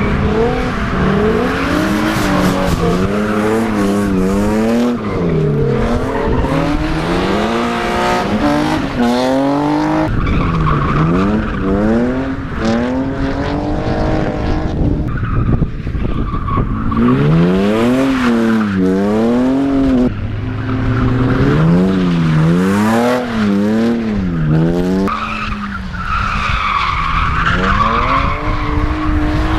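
BMW E30's 2.8-litre straight-six drifting: the revs rise and fall in quick repeated swings as the throttle is worked through the slides, with tyres squealing. The sound jumps abruptly several times between passes.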